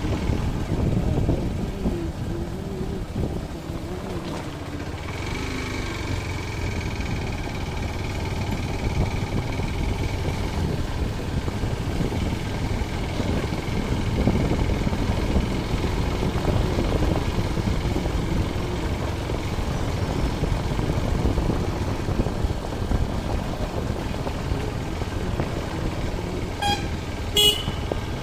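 Steady rumble of a small vehicle riding along a rough village road, with wind buffeting the microphone. A short horn toot sounds near the end.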